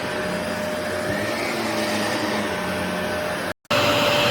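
Shark NV360 Navigator upright vacuum cleaner running steadily: a constant motor hum with a fixed whine over the rush of air. It cuts out for a split second a little over three seconds in, then comes back louder and hissier.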